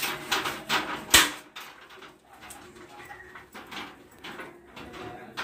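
Clicks and knocks of a sliding glass window panel being handled and worked in its frame, with one sharp knock about a second in, then softer scattered taps.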